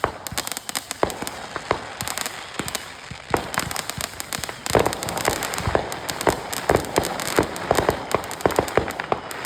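Firecrackers and fireworks going off in a rapid, irregular run of sharp pops and crackles, many overlapping, growing denser and louder about halfway through.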